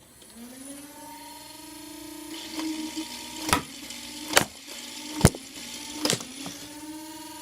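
Battery-powered Nerf toy minigun: its electric motor whirs up to a steady hum, with four sharp cracks about a second apart as it fires its four foam darts.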